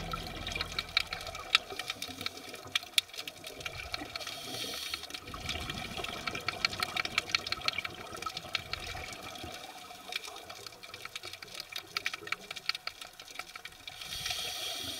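Underwater sound around scuba divers: a dense, irregular crackle of clicks, with two bursts of bubbling hiss from exhaled air, about four seconds in and near the end.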